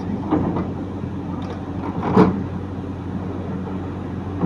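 Diesel engine of a Caterpillar 312 excavator running at a steady speed, with a short louder sound about two seconds in.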